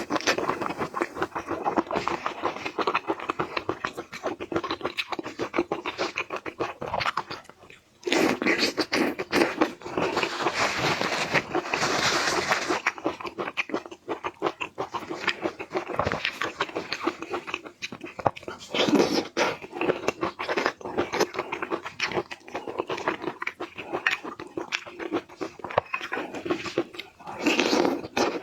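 Close-miked eating of shrimp: steady chewing and crunching, a dense run of crackling clicks with a brief pause about seven seconds in.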